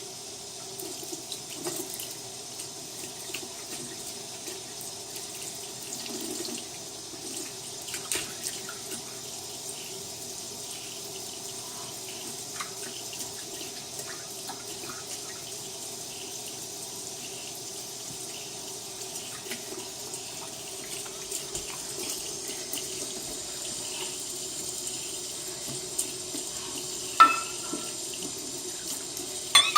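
Kitchen sink tap running steadily into the sink, with scattered small knocks and splashes and one sharper knock near the end.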